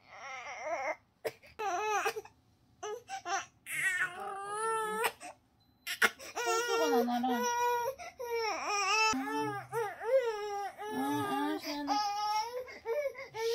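A feverish six-month-old baby crying: short fussing cries for the first few seconds, then steady, hard wailing that rises and falls in pitch from about six seconds in.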